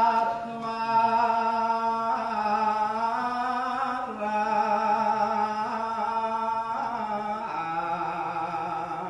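Outro music: a wordless voice holds long, steady notes, moving to a new pitch every couple of seconds. The last, lower note wavers with vibrato.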